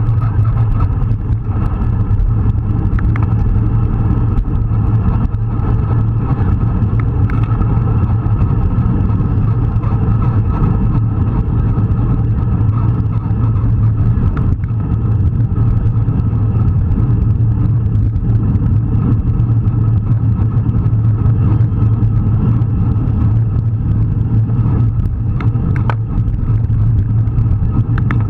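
Steady low wind rumble and road noise on an action camera riding at speed in a bunch of road cyclists, with a few faint clicks, mostly near the end.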